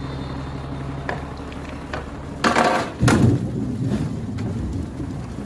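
Oak logs tumbling off a dump truck: a few knocks, then two loud crashes about two and a half and three seconds in, followed by rumbling clatter as the wood settles.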